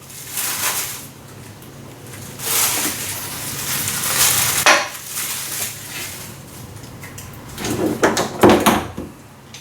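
Rustling of packaging and clinking of small metal parts, such as welding gun contact tips, being handled and set down, with a few sharper knocks near the end.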